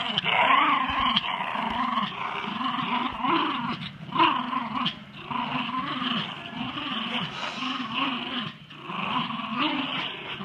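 Schipperkes play-growling in a rope tug-of-war: a continuous low, rasping growl that swells and eases in repeated pulses, roughly one to two a second.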